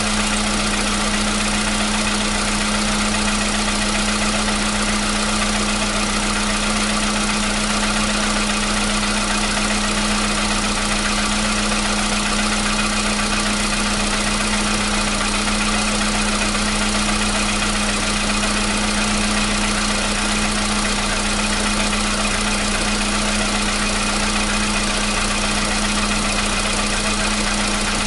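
Volkswagen Polo Sedan petrol engine idling steadily from a cold start while it warms up, with no cold-start knock: the knock it used to make when cold has gone.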